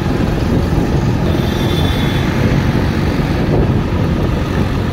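Steady wind rush on the microphone mixed with traffic and tyre noise on a wet road, heard while moving through traffic. A faint thin high tone sounds for about a second, starting a little over a second in.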